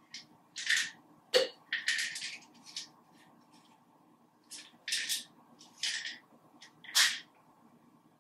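Hands working at a bathroom sink: about a dozen short, uneven rubbing or swishing strokes, with one sharp click about one and a half seconds in.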